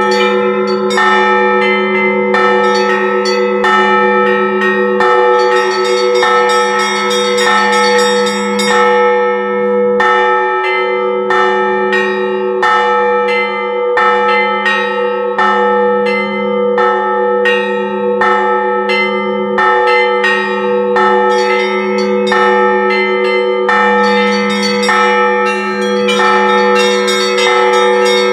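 Russian Orthodox church bells rung together: smaller bells struck in a steady rhythm over the continuous low ringing of the larger bells.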